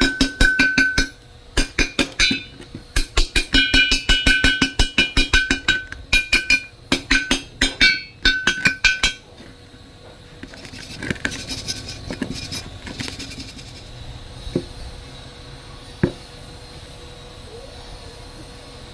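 Rapid hammer strikes on steel that ring with a clear metallic tone, several blows a second in quick runs, stopping about nine seconds in. A few faint single knocks follow.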